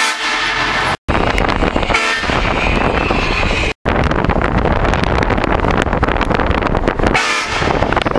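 Aftermarket air train horn on a car blasting loudly. It is cut into separate stretches by abrupt brief breaks about a second in and just before four seconds in.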